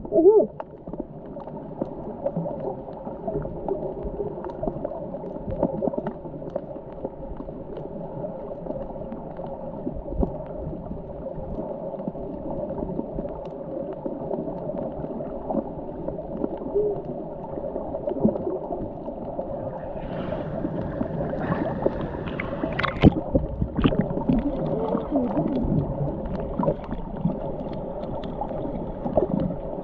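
Muffled underwater sound picked up by a GoPro Hero held under the water: water moving and gurgling around the camera. A cluster of sharp clicks and knocks comes about two-thirds of the way through.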